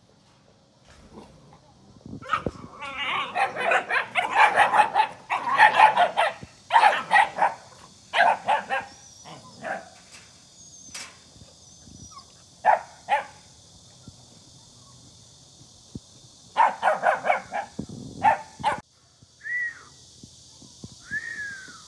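Puppies barking and yapping at each other through a chain-link fence in rapid runs of short barks, with pauses, followed by two short falling whines near the end.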